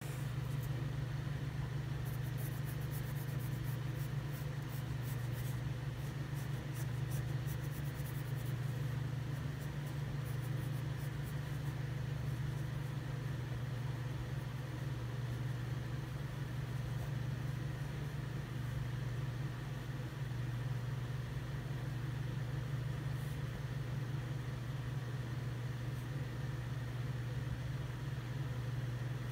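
Pencil scratching on drawing paper in short strokes, busiest in the first dozen seconds, over a louder steady low hum.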